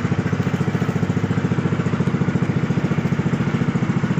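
Motorized bangka (outrigger boat) engine running steadily with a fast, even putter.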